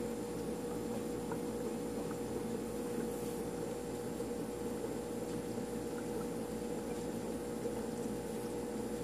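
Aquarium filter running: a steady hum with water moving.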